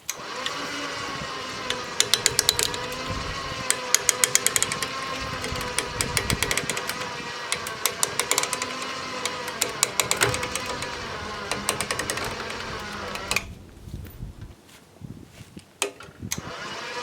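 A motor running steadily with a wavering hum, overlaid by bursts of rapid clattering, then cutting off about thirteen seconds in.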